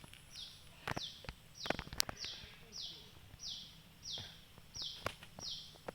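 A high chirping call repeated evenly, about one and a half to two chirps a second, each chirp falling in pitch. A few sharp clicks and knocks come in between, the loudest around two seconds in.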